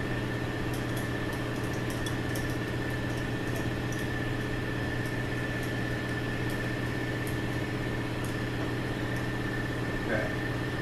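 Steady machine hum with a constant high whine in the workshop, with faint, irregular small clicks as a 10-32 tap is turned by hand in a bolt hole of a transmission clutch drum.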